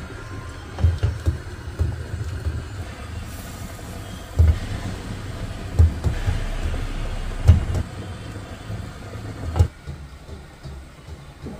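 Steady low rumble with a series of dull thumps and a sharper knock near the end, as meatballs are scooped from a simmering pot with a slotted spoon and set down on a plate.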